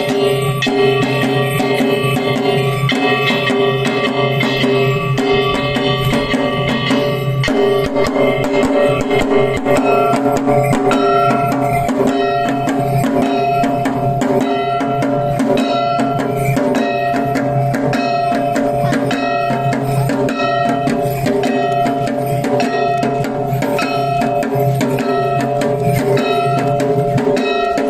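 Shishimai (lion dance) festival music from a Kagawa troupe: fast, steady drumming over continuous ringing tones.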